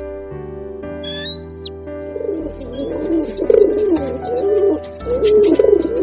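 A hawk gives one short, high call about a second in; from about two seconds on, feral pigeons coo over and over, the loudest sound, over soft background music.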